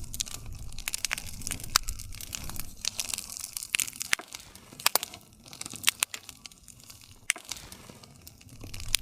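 Wood campfire burning, crackling with irregular sharp snaps and pops over a low rumble of flames; a few louder pops stand out.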